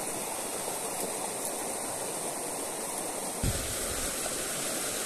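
Steady rush of fast-flowing river water. A short low thump comes about three and a half seconds in.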